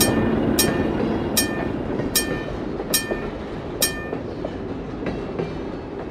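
HO scale wig wag crossing signal's bell dinging at a slowing pace and stopping about four seconds in, over the fading rumble of model freight cars rolling past. A few light clicks of wheels over the rail joints follow.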